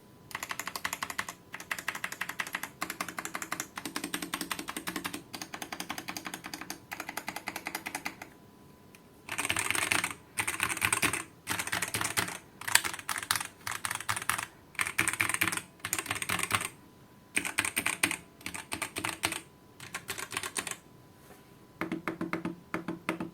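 Typing on a VortexSeries GT-8 75% mechanical keyboard with Outemu Brown tactile switches: runs of fast keystroke clicks, broken by short pauses near the middle and again near the end.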